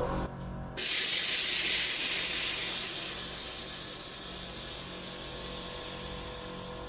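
A loud hiss of rushing air or spray that starts abruptly about a second in and slowly fades away.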